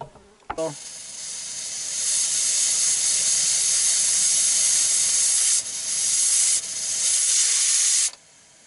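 Hawkins pressure cooker on a camp stove venting steam through its weighted pressure regulator, a loud steady hiss that builds over the first couple of seconds, dips briefly twice, and cuts off abruptly near the end: the sign that the cooker has come up to full pressure.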